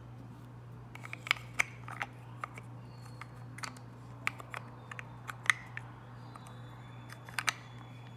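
Wooden grip panel being pressed and fitted onto the steel frame of a Colt Match Target .22 pistol: a series of light, sharp clicks and taps at irregular intervals, over a steady low hum.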